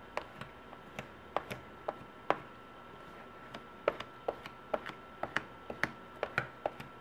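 Plastic squeegee worked in quick strokes over a wet InvisibleSHIELD screen-protector film on an iPad mini, pushing the application fluid and air bubbles out: a string of irregular sharp clicks and taps, with a lull near the middle.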